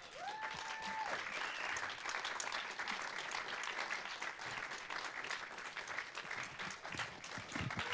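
Audience applauding steadily, with one short held cheer near the start.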